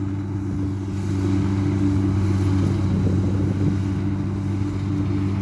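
Kubota DC60 combine harvester's diesel engine running steadily under load while it cuts rice.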